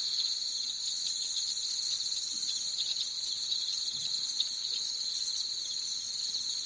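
Steady insect chorus: a high, continuous trill that runs unbroken.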